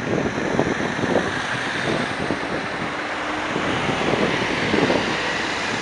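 Steady rush of road traffic with wind buffeting the microphone.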